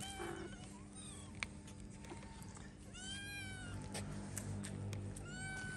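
Hungry stray cats meowing several times, short arched meows, the clearest about three seconds in and another near the end.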